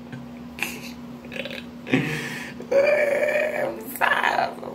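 A man making drawn-out nonverbal vocal sounds, not words: a sudden one about two seconds in, a longer held one a second later, and another near the end.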